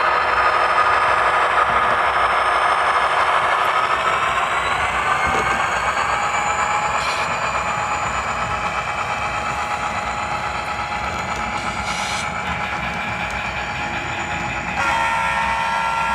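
Model Union Pacific diesel locomotive's onboard sound running steady diesel engine sounds as the train rolls by, with a horn sounding near the end.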